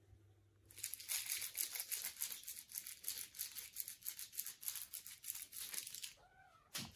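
Foil crinkle ball scrunched and rustled in a hand, a dense crackling that lasts about five seconds, then a brief thump near the end.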